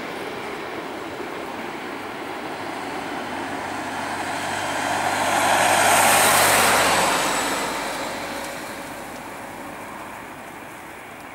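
Boeing 767-323ER's General Electric CF6 jet engines roaring as the airliner rolls out after touchdown. The roar swells to a peak about six seconds in, the rise typical of reverse thrust spooling up on the landing roll, then dies away as the aircraft slows and moves off.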